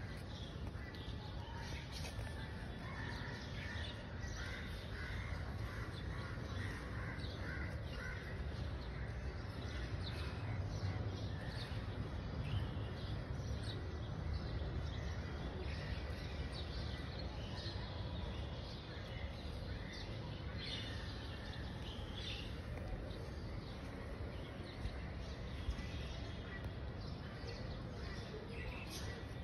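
Outdoor ambience of birds calling, short scattered calls throughout, over a steady low background rumble.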